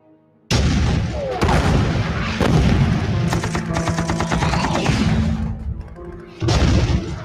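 Battle sound effects: explosions and rifle fire, with a rapid burst of machine-gun fire in the middle, over music. The sound begins abruptly about half a second in, and another loud blast comes near the end.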